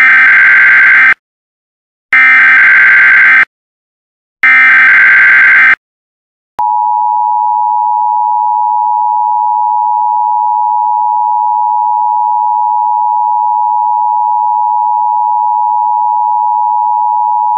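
Emergency Alert System header: three bursts of buzzy digital data tones, each a little over a second long with about a second between them, then, about six and a half seconds in, the steady EAS attention tone starts. Together they open the alert for a severe thunderstorm warning.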